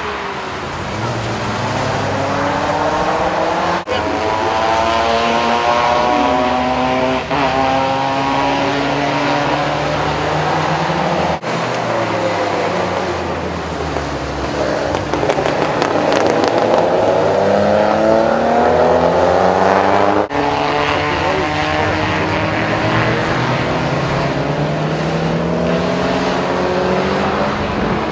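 Several cars accelerating hard one after another on a wet track, their engines revving up through the gears in repeated rising sweeps, with road and spray noise under them. The sound breaks off abruptly a few times as one car's run gives way to the next.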